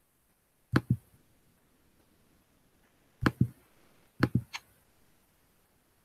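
Computer mouse clicks, as the on-screen e-book is paged forward. There is a quick double click about a second in, another pair about three seconds in, and three quick clicks just after four seconds, with near silence between.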